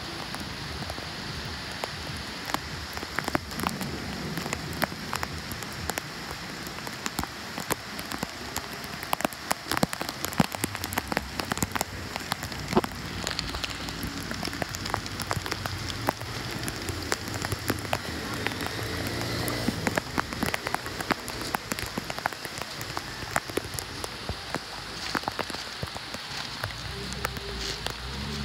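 Steady rain falling on a flooded road and puddled water, with many separate drops ticking and splashing close by.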